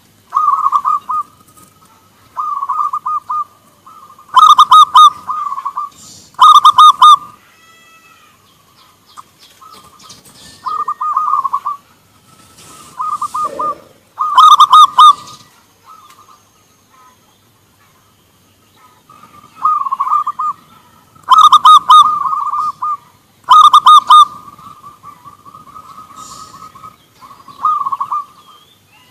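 Caged zebra doves (perkutut) cooing back and forth, about a dozen short phrases of rapid coos, a few of them much louder than the rest, with a quiet spell of a few seconds in the middle.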